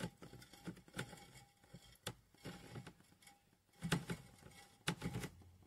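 Faint, irregular clicks and knocks as a screwdriver slowly levers a driveshaft round by hand.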